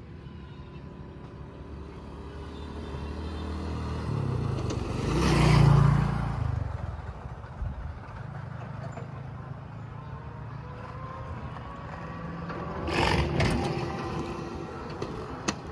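An engine passing by, its hum and rush swelling to the loudest point about six seconds in and fading, then a second, shorter pass about thirteen seconds in. A sharp click near the end.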